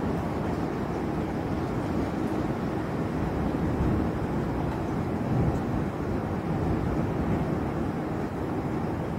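Steady low rushing noise of a night thunderstorm, with a slight swell about five seconds in and no sharp thunderclap.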